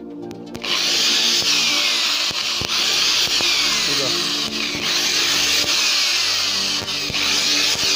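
Electric hand drill boring into a panel. It starts about half a second in and runs loud and steady under load, with a harsh high hiss.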